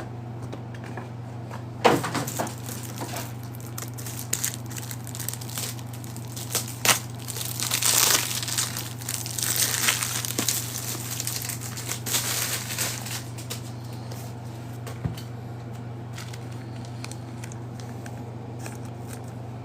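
Plastic wrapper of a trading-card pack crinkling as it is torn open and crumpled, in irregular bursts through the first two-thirds, then only a steady low hum remains.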